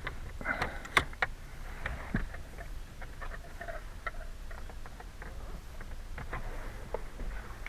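Irregular light clicks and taps of hand work on plastic steering-column trim and its screws, the sharpest click about a second in.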